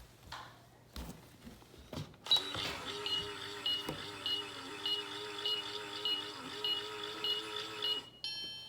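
Toy microwave running its electronic cooking sound: a steady hum with a short high beep about every 0.6 s, ending in a longer beep near the end. A few clicks come in the first two seconds.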